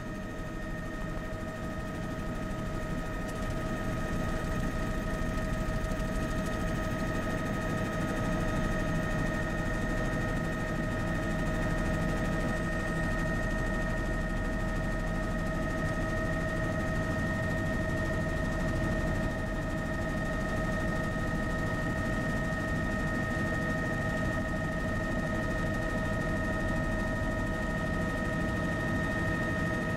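Tour helicopter heard from on board, running steadily through lift-off and climb: a constant high turbine whine over the low rotor and engine rumble, growing slightly louder over the first few seconds and then holding steady.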